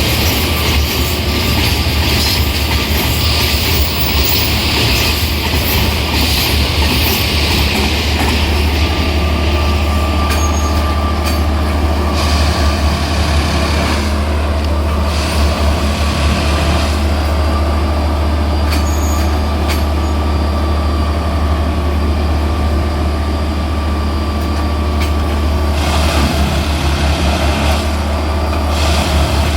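Plasser & Theurer rail-lifting track machine running, its diesel engine giving a loud, steady low hum. A hiss sounds over it for the first eight seconds or so and again near the end.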